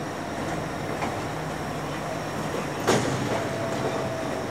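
Heavy road transporter with a subway car on its low trailer moving past at low speed: a steady rumble of engine and wheels. There is one sharp clank about three seconds in, and a short steady tone just after it.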